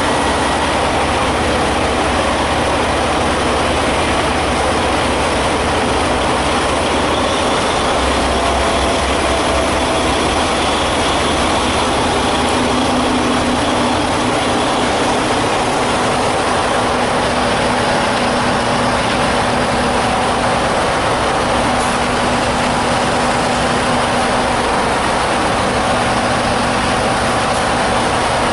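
Truck engine running steadily, a continuous loud rumble, with a faint steady tone joining about twelve seconds in.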